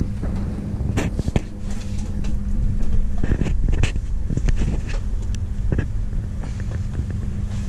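An engine running steadily, with scattered sharp clicks and knocks over it.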